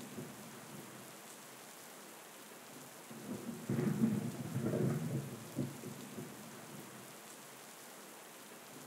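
Thunderstorm: steady rain hiss, with a crackling roll of thunder starting a little under four seconds in that rumbles for about two seconds and then dies back to the rain.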